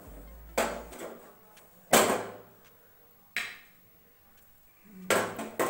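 Metal pan supports being set down onto a stainless-steel gas stove top: five sharp clanks, each ringing briefly.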